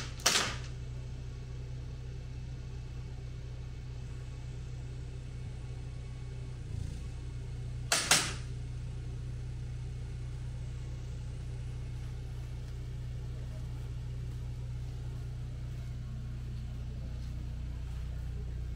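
Steady low rumble with two sharp bangs: one just after the start, and a doubled one about eight seconds in.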